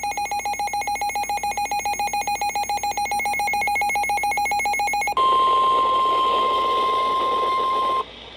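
A rapidly pulsing electronic alert tone that trills like a telephone ring. About five seconds in, it gives way to the louder steady 1050 Hz NOAA Weather Radio warning alarm tone over radio hiss, which cuts off abruptly near the end, just before the warning message.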